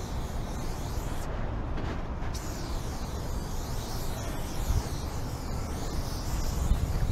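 Aerosol spray paint can hissing in long bursts, with a short break starting about a second in and the spray resuming about two and a half seconds in. Wind rumbles on the microphone underneath.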